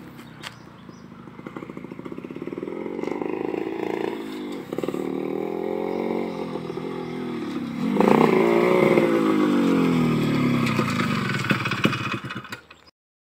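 Suzuki Shogun two-stroke motorcycle approaching and growing louder, its engine note rising and falling with the throttle. About eight seconds in it revs hard close by, then the revs fall away, and the sound cuts off suddenly near the end.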